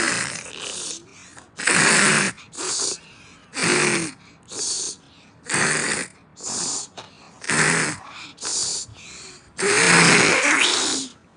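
A child imitating a dad's loud snoring: pairs of noisy snores, a longer one then a shorter one, repeating about every two seconds, the last snore the longest.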